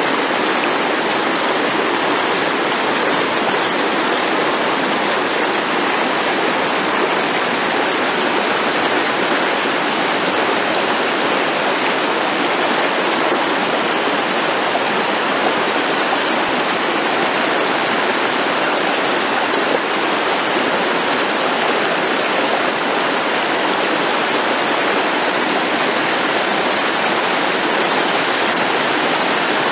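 Shallow, fast-flowing river rushing and babbling over stones, a steady, unbroken water noise.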